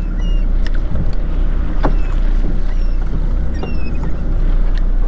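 Charter fishing boat's engine running with a steady low rumble, with a few small clicks and short high chirps over it.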